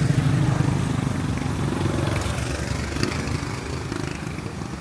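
Motorbike engine passing close by, loudest at the start and fading away, over steady street noise.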